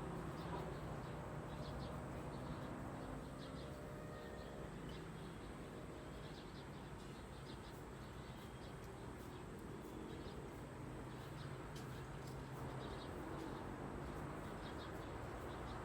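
Birds chirping faintly in short, scattered calls over a steady low hum.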